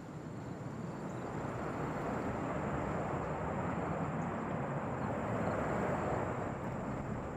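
Jet airliner engine noise, a rushing sound that grows steadily louder as the aircraft approaches.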